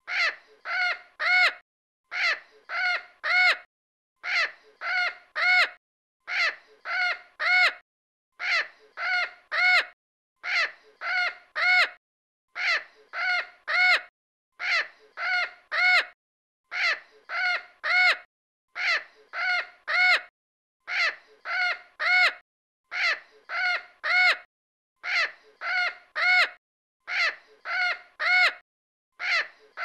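Crow cawing in groups of four, each caw louder than the one before and the fourth the loudest. The same group repeats about every two seconds, like a looped recording.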